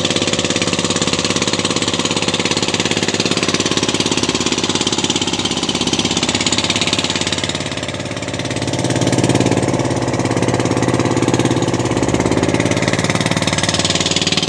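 Outrigger fishing boat's inboard engine running steadily under way, a fast even knocking beat. There is a slight dip about eight seconds in before the level comes back up.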